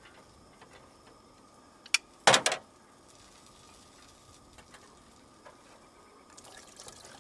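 Hand can opener working a tin can of sweet corn on the Jeep's metal tailgate: a sharp click about two seconds in, then a short loud clunk, then faint small clicks as the lid comes free.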